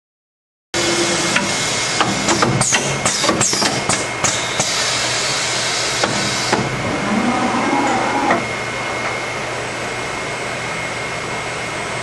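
Factory machinery running: a steady hum with a thin high whine, with a run of sharp clanks and knocks during the first few seconds before it settles into the steady noise.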